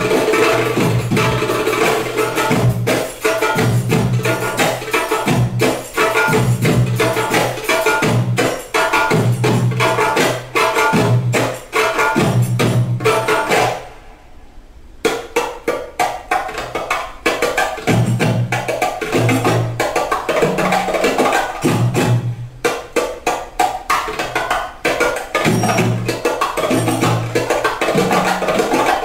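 Music with a steady percussive beat over a repeating bass line. It drops out for about a second halfway through, then starts again.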